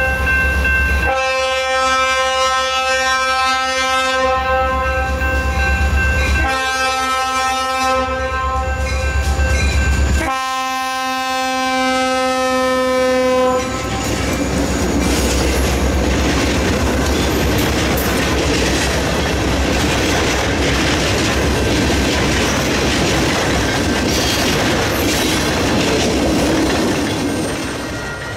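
Diesel locomotive horn sounding in long blasts with short breaks for about the first half, stopping as the locomotive reaches the crossing. Then the locomotive and train roll past with wheel clatter.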